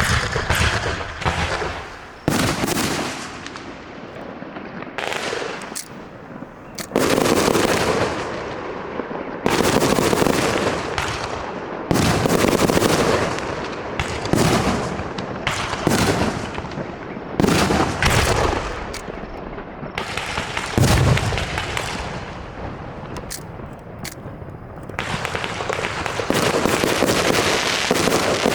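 Aerial fireworks shells bursting one after another in quick succession, each bang followed by a fading tail, with a denser continuous crackle near the end.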